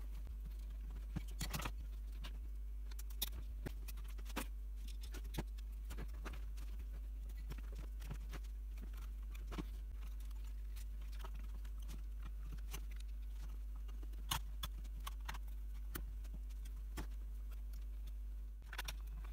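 Scattered light clicks, taps and rattles of metal parts and wired panels being handled and fitted into a small aluminium power supply chassis by hand, over a steady low hum.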